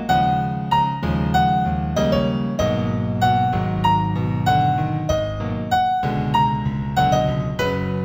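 Calm New Age piano music in F major: a melody of evenly spaced single notes, about one every two-thirds of a second, over sustained low chords.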